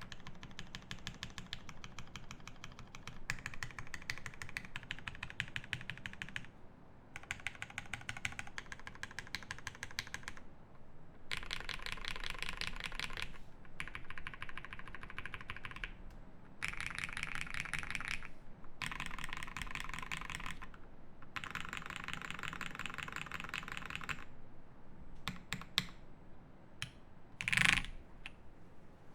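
Classy TKL mechanical keyboard with lubed Cherry Hyperglide MX Black linear switches, a polycarbonate plate, case foam and GMK keycaps, typed on fast in runs of keystrokes with short pauses between them. Near the end the typing thins to a few separate keystrokes, with one louder knock.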